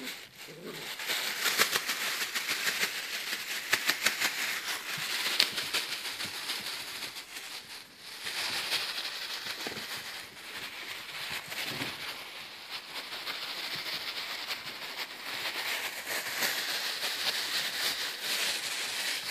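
Plastic shopping bag crinkling and rustling in a dense, crackly run as puppies bite and tug at it, easing off briefly about eight seconds in.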